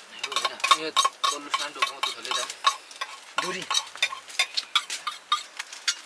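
Large woven bamboo basket being handled, its dry bamboo strips giving a dense, irregular crackling and creaking.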